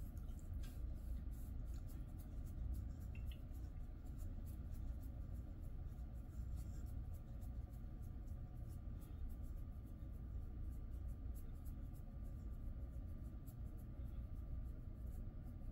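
Fingers scratching and rubbing through a Jindo dog's thick coat: a soft, continuous rustle of many small scratchy ticks over a steady low hum.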